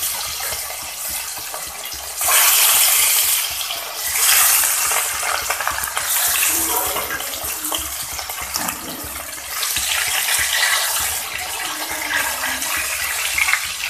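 Pieces of rohu fish sizzling in hot oil in a wok. The sizzle flares up loudly about two seconds in and again about four seconds in as more pieces go into the oil, then settles to a steady frying hiss.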